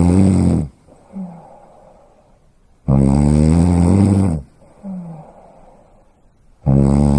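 Loud, rhythmic snoring: a long, rasping snore about every four seconds, with a short, soft sound in each gap between snores.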